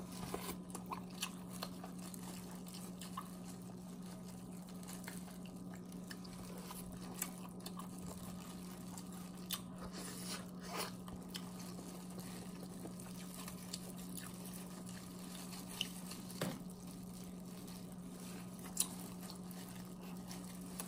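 Irregular crunches and cracks of a king crab leg shell being bitten and pulled apart, with chewing, over a steady low hum.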